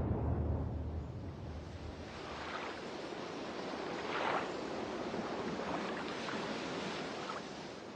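A deep rumble dies away over the first second or so, like the tail of a boom. It leaves a steady rushing noise, with a few faint short rising whistles or cries scattered through it.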